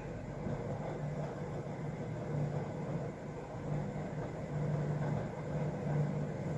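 Steady low background rumble with a droning hum that swells and eases a little; no sneeze is heard.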